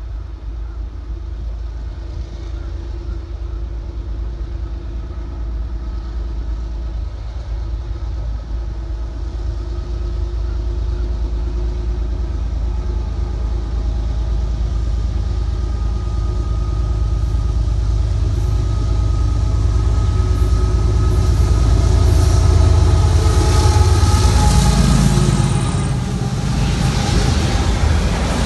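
Diesel-electric freight locomotive approaching and passing. The low rumble of its engine, with a few steady tones over it, grows steadily louder and is loudest about three-quarters of the way through. Near the end the freight cars roll by with a wider rushing noise of wheels on rail.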